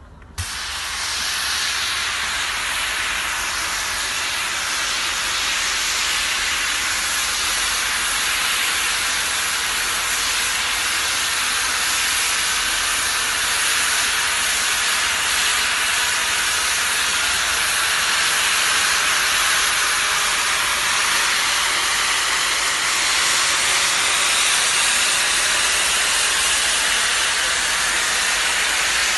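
FS class 740 steam locomotive 740.293 venting steam in a loud, steady hiss that starts abruptly about half a second in.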